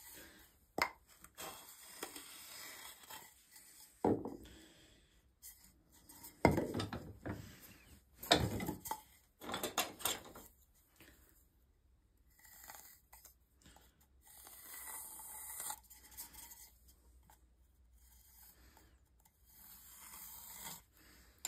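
A wooden stool leg being handled at a workbench and vise: scattered knocks of wood on wood, with rubbing and scraping between them and a pencil marking the wood near the end.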